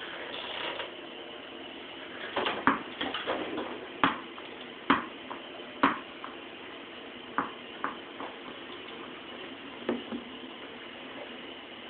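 Irregular sharp knocks and taps, about seven of them spread over several seconds, the loudest in the first half.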